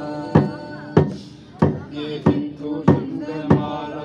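Voices singing a slow song in unison to a drum beaten steadily, about one stroke every two-thirds of a second.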